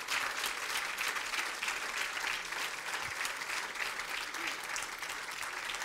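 Congregation applauding: dense, steady clapping from many hands.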